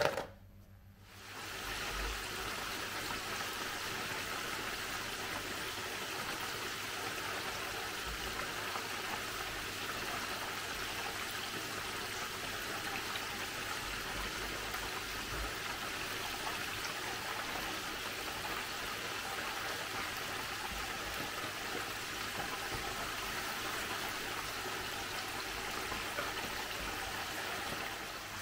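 Breaded chicken deep-frying in a pot of hot oil: a steady, even sizzle and bubbling that starts about a second and a half in and holds without change.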